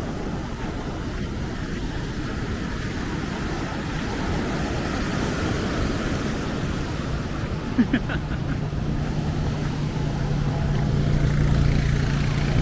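Heavy storm surf breaking and washing up the sand. About two-thirds of the way in, the steady low hum of a quad bike's engine joins it and grows louder.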